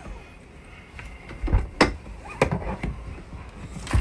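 Someone getting out of a parked car: a few sharp clicks and knocks from the seatbelt and the car door, the sharpest just before the end.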